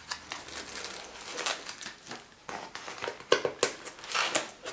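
Cardboard rubbing and scraping as a boxed test kit is slid out of a cardboard mailer, in irregular rustles with a few sharp taps, and a crinkle of a small plastic bag near the end.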